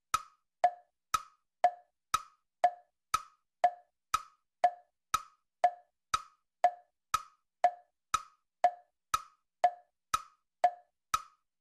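Steady tick-tock of wood-block clicks, two a second, alternating between a higher and a lower pitch.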